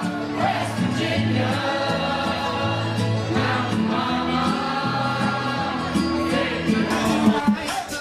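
Dance music with voices singing over a bass line that steps between held notes.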